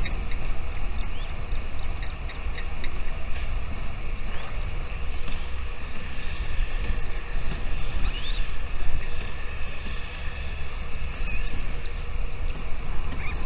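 Wind rumbling steadily on the microphone, with faint scattered bird chirps and a few short whistled calls over it; the clearest call comes about eight seconds in.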